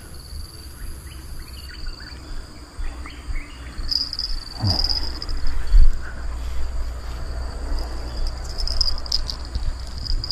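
Insects chirring in a steady high buzz that grows stronger about four seconds in and again near the end, over a constant low rumble. About halfway through there is a short sweep falling in pitch, and just after it a single low thump.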